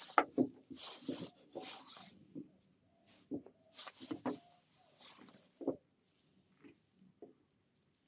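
Small pieces of pallet wood knocking and scraping on a workbench as they are handled and set in place: a string of short, irregular knocks with brief scraping sounds between them, the loudest knock near the start.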